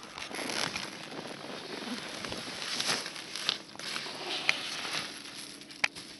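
Skis scraping and crunching on snow as a skier edges down a steep chute, with a few sharp clicks from skis or poles.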